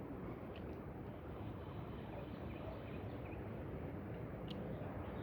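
Steady wind noise with a low rumble, and a few faint short chirps and one brief click near the end.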